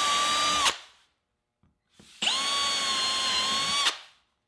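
Cordless drill boring holes through HDF-faced plywood with a twist bit: one run ends under a second in, then after a short pause a second hole is drilled in a run of under two seconds, the motor whine holding a steady pitch.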